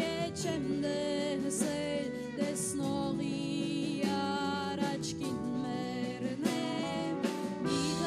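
A band playing live: electric guitar, keyboard and a drum kit with cymbals, under a wavering melody line.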